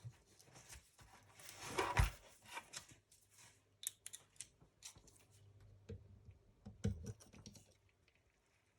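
Small hand tools and engine parts being handled while work starts on the carburettor of a small nitro model engine: scattered light clicks and taps, with a brief scraping rub about two seconds in.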